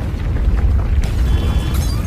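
A loud, continuous deep rumble, with faint high thin tones in the second half.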